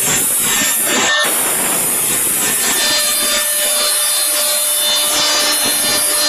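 CNC router spindle cutting a groove into fibreboard, a steady high-pitched hiss of the cutter with a brief dip about a second in. A faint steady tone joins about three seconds in.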